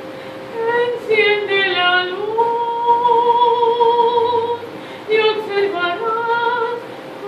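A woman singing alone, a slow melody with long held notes, through a headset microphone. A steady faint hum runs underneath.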